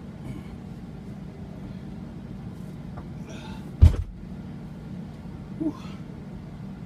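Steady low hum of a semi truck's engine idling, heard inside the sleeper cab. A single sharp thud just under four seconds in, with a few faint breaths around it.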